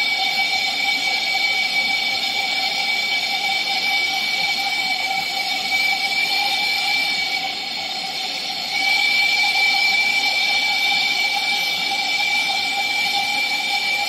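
Small brazing torch flame hissing steadily with a high whistle, heating a copper refrigerator tube joint for brazing. The whistle drops out for about a second a little past halfway, then comes back slightly louder.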